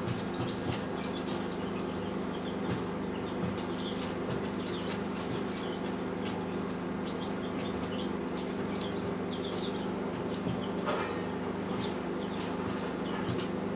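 Poultry peeping and chirping in short high calls over a steady machine hum, with scattered clicks and light knocks.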